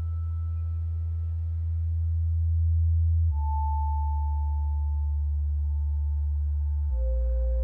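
Eurorack modular synthesizer playing a slow ambient drone: deep low notes that change about every three and a half seconds, each with a single pure high tone above them. The high tone steps lower in pitch at each change.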